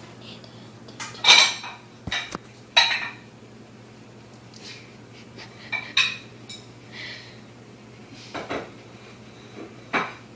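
Dishes and cutlery being handled, clattering and clinking in about six separate, irregularly spaced knocks.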